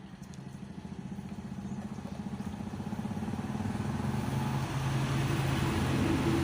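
A small motor vehicle's engine running with a fast, even pulse, growing steadily louder as it draws closer.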